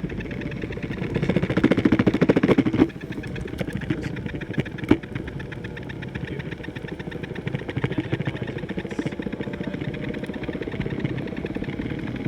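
Backfire G2T electric skateboard under way, with a fast, continuous rattling noise from a wheel whose cause is unknown. It is louder for a couple of seconds near the start, and there is a sharp click about five seconds in.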